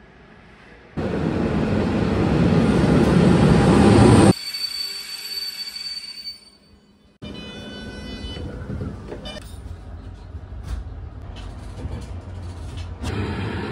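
Passenger train noise: a loud, rising rush of a train running for about three seconds, then an abrupt change to the steadier, quieter rumble of riding inside a moving carriage.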